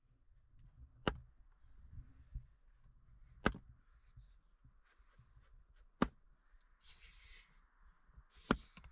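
Axe chopping firewood on a chopping block: four sharp strikes, evenly spaced about two and a half seconds apart.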